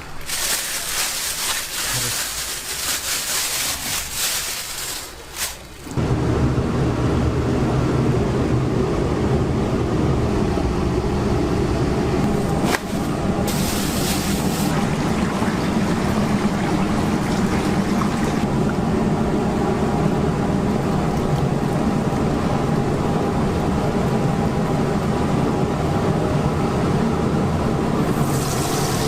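Chicken deep-frying in hot oil, a crackling sizzle with many small pops. About six seconds in, a louder, steady rumbling noise comes in and stays.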